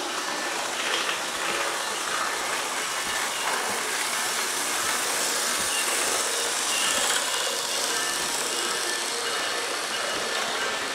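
HO scale model train running along its track, a steady running noise with no clear rhythm.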